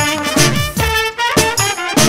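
Romani brass band music: an instrumental passage of brass horns over a bass line and a steady drum beat.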